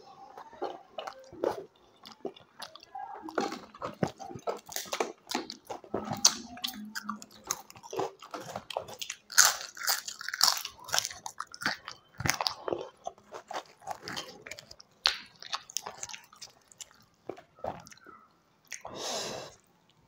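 A person chewing and biting mouthfuls of puri, sabzi and crisp fried papad close to a clip-on microphone: a continuous run of crunches and wet chewing.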